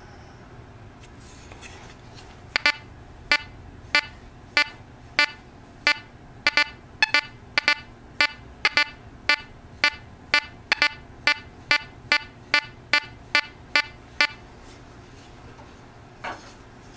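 Teknetics Gamma 6000 metal detector giving its target tone as a coin is swept over the search coil: a quick string of short beeps at one pitch, about two a second, for some twelve seconds. A single fainter beep comes near the end.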